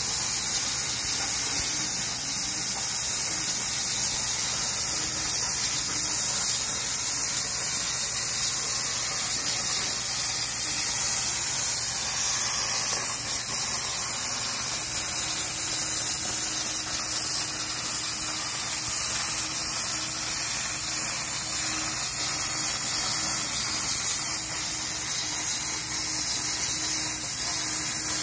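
CNC plasma cutter torch cutting sheet steel: the arc and its air jet make a steady, high-pitched hiss without a break.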